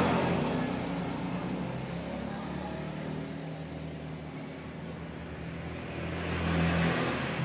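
A steady low mechanical hum with background noise, swelling louder about six seconds in.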